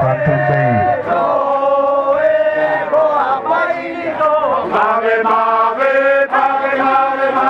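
A group of men chanting a traditional Bajawa ritual song together, with long held notes that step up and down in pitch.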